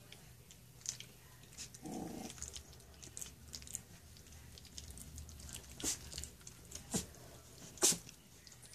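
Three-week-old golden retriever puppies squirming together in a pile, with many small wet clicks from their mouthing and chewing at each other. One short puppy grunt or whimper comes about two seconds in.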